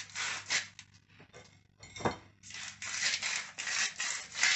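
Salt grinder twisted over a jacket potato in quick rasping strokes, coarse salt falling onto a ceramic plate. The grinding pauses about a second in, with a single light knock, then starts again.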